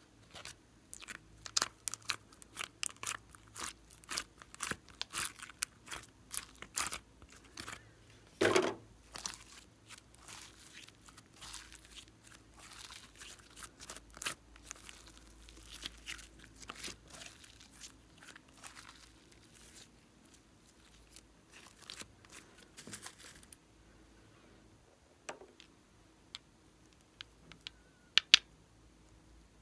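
Glossy slime being squeezed and kneaded by hand, giving a fast run of sticky clicks and small air-bubble pops, with one louder squelch about eight seconds in. The crackle thins out over time, and near the end there are a couple of sharp clicks.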